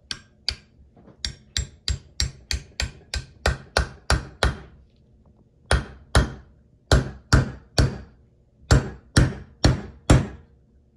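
Claw hammer tapping on a 16 mm steel socket set over a new brass air-line cartridge, driving it into a port of an Air Lift Performance suspension manifold. Light, even taps about three a second, a pause of about a second a little before halfway, then a second run of taps.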